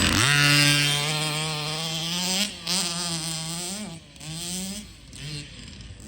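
Small engine of a 1/5-scale Baja 5B RC car running under throttle. It holds a steady buzzing pitch, then swings up and down from about halfway through. Near the end it backs off with a few short throttle blips.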